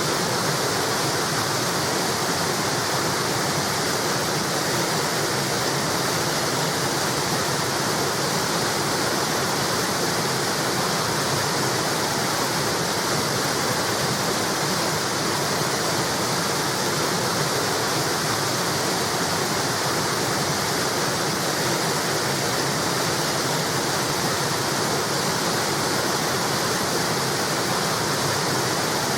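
River water pouring over a small wall: a steady, even rush of falling water.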